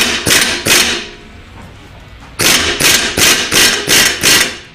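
Half-inch Chicago Pneumatic CP7748 air impact wrench hammering in short trigger bursts on a hub puller's screw stem, forcing a tapered-axle brake drum and hub outward at low force. Three quick bursts, a pause of about a second and a half, then a run of bursts about three a second.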